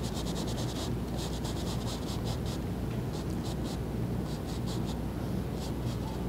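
Paintbrush scrubbing and dabbing oil paint onto a canvas in quick runs of short strokes, several a second, with brief pauses between runs. A steady low hum runs underneath.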